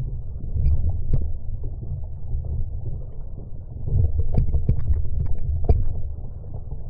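Wind buffeting the microphone as a steady low rumble, with a few light knocks and clicks, most of them between about four and six seconds in.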